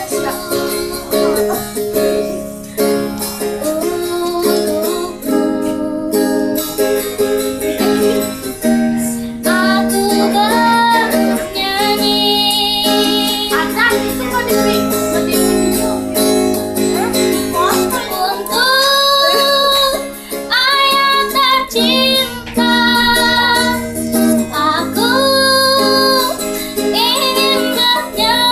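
A young girl singing with her own strummed ukulele accompaniment, holding some notes with a wavering vibrato.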